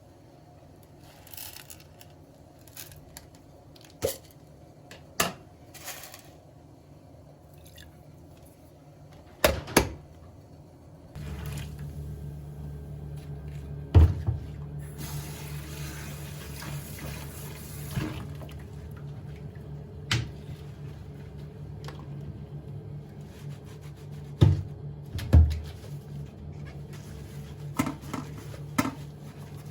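Kitchen work: sharp knocks and clinks of dishes and utensils at irregular intervals. About eleven seconds in, a steady low hum starts and holds, and for a few seconds in the middle water runs from a tap.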